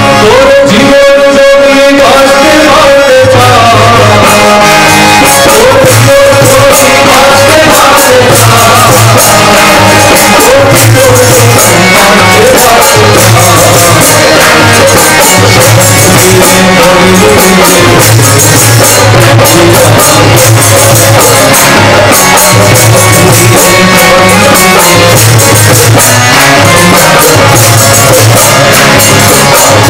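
Devotional kirtan music: harmoniums and group singing over a repeating low drum beat. A single note is held for the first few seconds before the melody starts to move.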